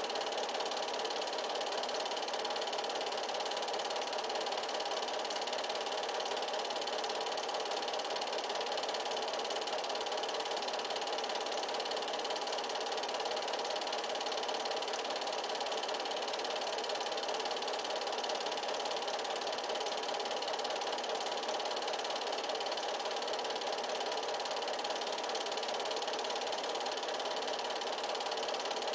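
8mm film projector running: an even, unchanging mechanical noise from its motor and film-transport mechanism.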